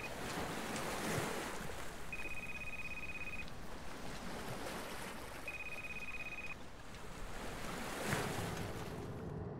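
Waves washing against a small sailboat with wind on the water, a steady hiss that swells about a second in and again near the end. A high steady beep, about a second long, sounds twice a few seconds apart over the water.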